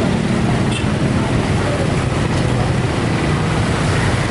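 Steady din of road traffic, vehicle engines running.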